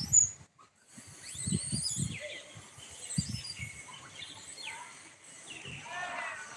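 Monkeys squeaking and chirping: a string of short high-pitched calls, several falling in pitch, with low bumps scattered between them.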